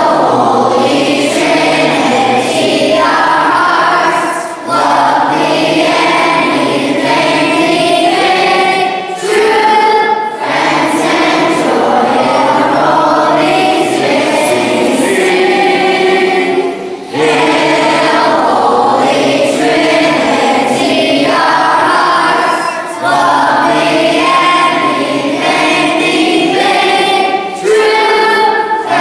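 A choir singing a song, with a brief break between phrases about every five seconds.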